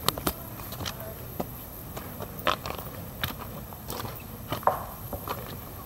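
Footsteps on a rocky dirt trail: uneven knocks and crunches of shoes on loose stones, roughly two a second.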